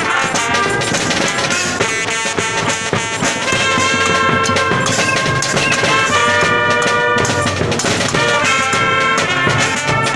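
Brass band playing live: trumpets and other brass hold chords that change every second or so, over steady snare and bass drum beats.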